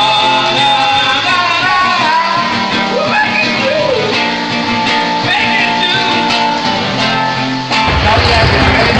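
Live band music: guitar with a singing voice, played loud through a PA. About eight seconds in the sound turns fuller and heavier in the bass.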